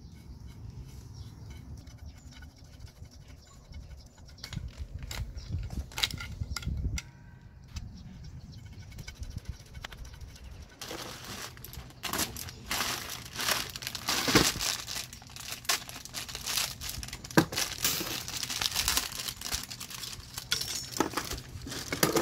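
Clear plastic packaging bags crinkling and rustling as the wire shelf's caster wheels and parts are handled and taken out of their cardboard box. The first half is quieter, with scattered handling clicks, and the crinkling grows loud about halfway through.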